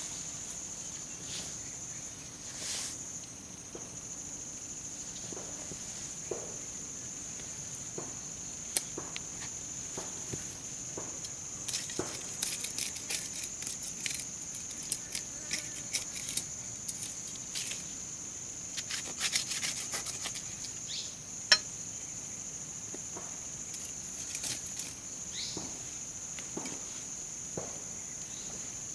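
A steady high-pitched insect drone, with scattered scrapes and sharp clicks of a large hand knife digging and scraping soil around a yam tuber. The scraping comes in two busy spells midway.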